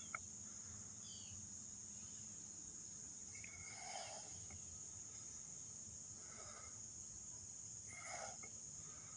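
Steady, high-pitched chorus of insects such as crickets, with a few faint, short sounds about four and eight seconds in.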